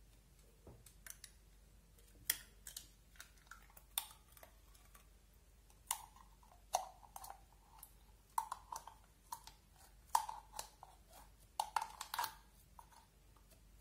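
Clear slime being pulled and peeled out of a round plastic pot, giving irregular sticky clicks and pops. They begin about a second in and come thickest in the second half, some with a brief ring from the plastic.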